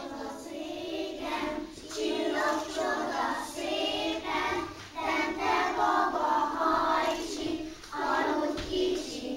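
A group of young children singing a song together in chorus, in phrases with short breaks about two, five and eight seconds in.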